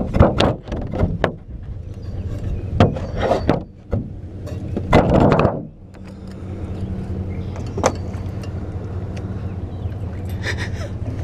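A boat motor humming steadily. Over it in the first half are irregular bumps and rustles from a hand-held camera being moved, with the loudest burst about five seconds in.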